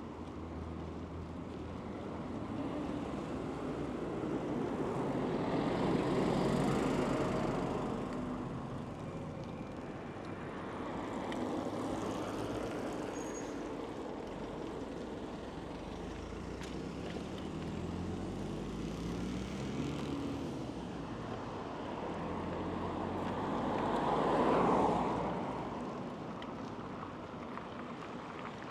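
Street traffic: motor vehicles passing on a city road, each swelling up and fading as it goes by, the loudest passing near the end. About two-thirds through, an engine speeds up with a rising pitch.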